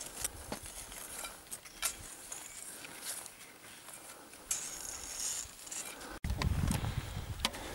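Boots with crampons crunching and scraping on hard snow in slow, irregular steps, with sharp little clicks. About six seconds in, the sound cuts out for an instant and a louder low rumble sets in.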